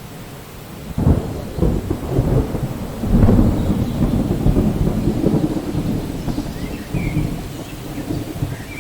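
Thunder breaks suddenly about a second in and swells again around three seconds, then rolls on as a long low rumble that slowly fades. Steady rain falls throughout.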